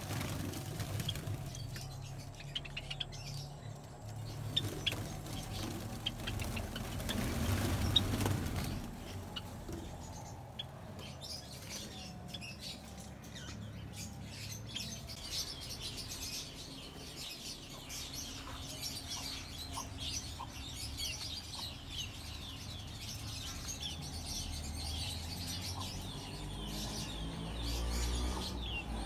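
A flock of Java sparrows chirping, with many short, high calls overlapping, and now and then a flutter of wings as birds fly about the aviary.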